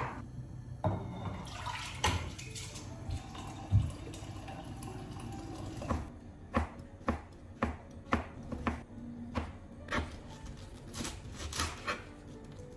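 Water running and pouring, as soaked rice and water go into a pot to cook congee, then a run of sharp clicks and knocks, a few a second, from about halfway through.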